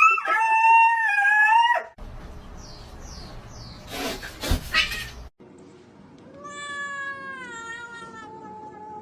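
A cat meowing: a long, loud yowl at the start, then after a noisy pause with a sharp click, another long meow that slowly falls in pitch.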